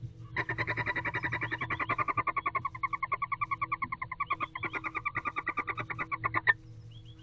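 An animal's trilling call: a rapid, even train of about eight to ten notes a second that lasts some six seconds and stops abruptly, over a low steady hum.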